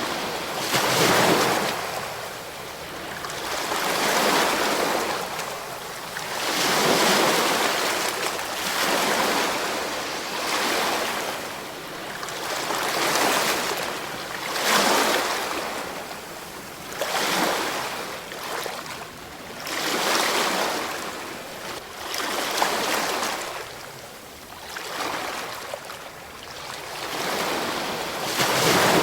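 Ocean waves breaking and washing in, a surge of surf noise every two to three seconds.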